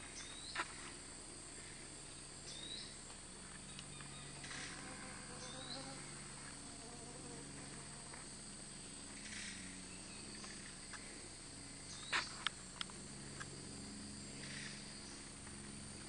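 Rainforest insects droning steadily at a high pitch, with a few short upward-rising chirps from another animal now and then. A few sharp clicks come in a cluster about twelve seconds in.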